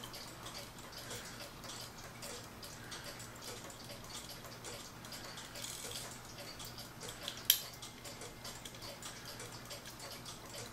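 Balance-wheel movement of a Howard Miller ship's bell clock ticking steadily, running again after being oiled. A single sharp click about two-thirds of the way in.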